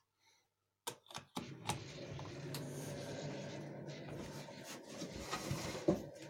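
A few sharp clicks, then a microwave oven running with a steady hum, with scattered light clicks and rustles over it.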